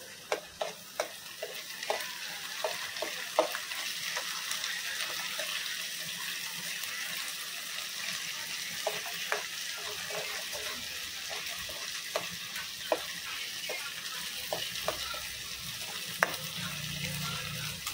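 Beaten eggs sizzling in a stainless steel kadai on a gas burner while a steel spoon stirs them, clicking against the pan at irregular intervals.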